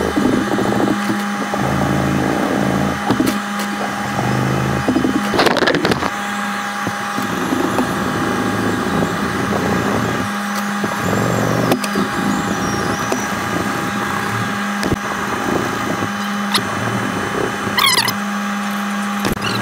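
Hand sanding a stainless steel knife blade with sandpaper, played back sped up: fast, scratchy rubbing over a steady hum.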